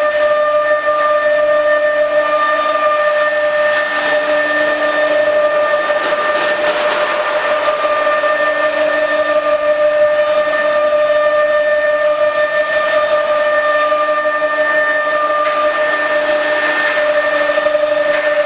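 Machinery running in a CNC router workshop: a steady whine at one unchanging pitch with a few overtones, over an even hiss.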